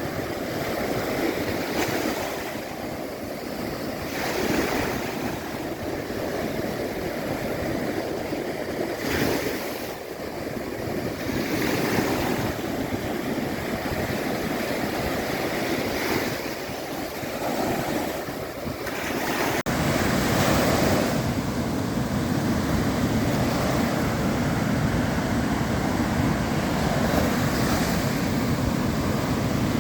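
Sea waves washing on a shore: a continuous rush of surf that swells every few seconds. About two-thirds of the way through it changes abruptly to a steadier, louder rush of surf.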